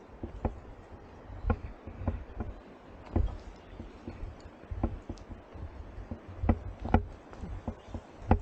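Irregular knocks and taps, about one a second, over low thuds.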